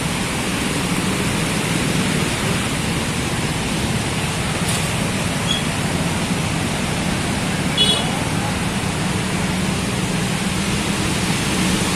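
Steady rushing noise of water on a flooded road as cars and motorbikes drive through it, with a low engine hum underneath. A short high chirp comes about eight seconds in.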